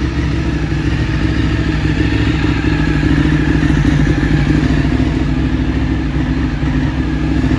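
Ducati 848 Streetfighter's V-twin engine idling steadily.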